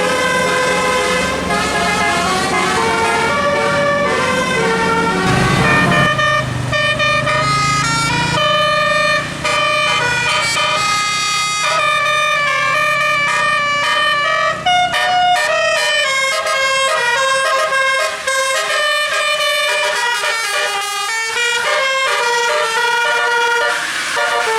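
Bus telolet horn, a multi-note musical air horn, playing a fast melody of quickly changing pitched notes. A low rumble sits under the first fifteen seconds or so and then drops away.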